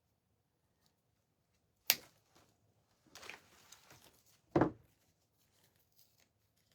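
Handling of an artificial floral pick and craft supplies on a worktable: a sharp click about two seconds in, soft rustling of the stems a second later, then a short thump.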